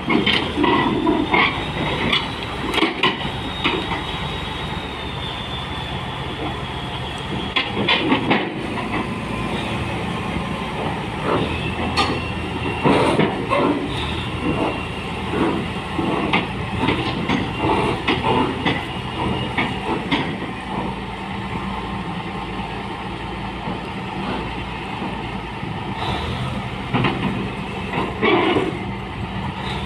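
Heavy diesel machinery running steadily during the loading of a Zoomlion ZD220 crawler bulldozer onto a self-loader truck, with repeated sharp metallic clanks and knocks and, at times, a thin high squeal.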